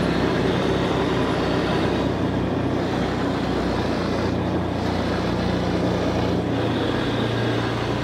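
Motor vehicle engine running steadily while travelling along a road, with road and wind noise; the engine's pitch shifts slightly around the middle.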